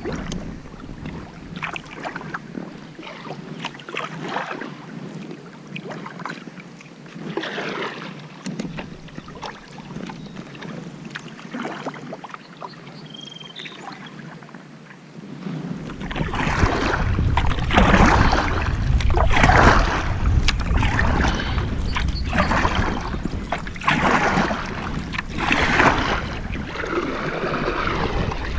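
Kayak paddle strokes splashing in river water in a steady rhythm, louder from about halfway through.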